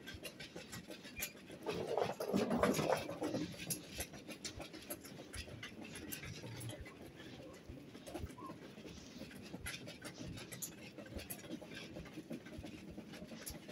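Shop ambience with irregular footsteps and rustling handling noise from a phone being carried while walking. A louder, muffled rustling stretch comes about two seconds in.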